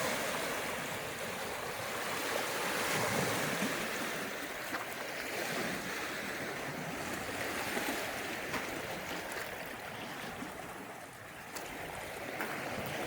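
Choppy lake waves washing onto the shore, a steady surf that swells and eases.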